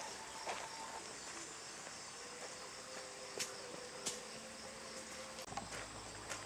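Insects chirping steadily with a regular pulse, over a few faint clicks; a low hum comes in about five and a half seconds in.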